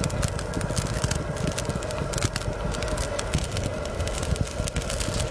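Spicy ramen broth boiling in a pot over a fire: steady crackling with many small pops over a low rumble, as chopsticks stir blocks of instant noodles.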